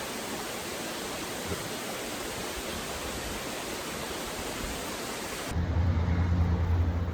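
Steady roar of Catawba Falls, a waterfall: an even rushing hiss. About five and a half seconds in it cuts off suddenly and a steady low hum takes over.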